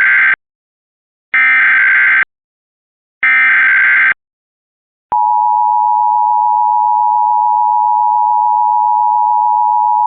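Emergency Alert System SAME header carrying a Child Abduction Emergency (CAE) alert. The tail of one digital data burst is followed by two more full bursts, each just under a second long and about a second apart. About five seconds in, the steady two-tone EAS attention signal starts and holds.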